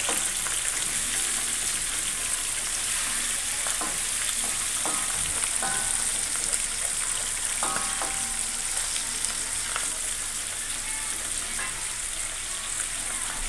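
Hot oil sizzling steadily as whole fish deep-fry in a wok on a gas stove, a bright continuous hiss with occasional light clicks.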